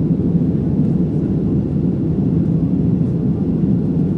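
Steady low rumble of an Airbus A320's jet engines and airflow heard inside the passenger cabin during the climb after takeoff.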